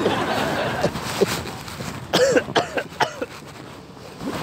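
A man coughing: a run of several harsh coughs about two seconds in, put on as part of a cough prank.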